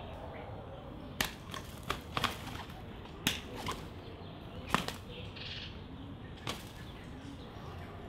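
Doves' wings clapping and flapping as they take off: a series of sharp slaps from about one to five seconds in, with one more a little later.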